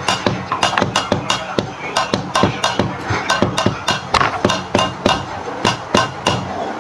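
Background music with a fast, even percussive beat.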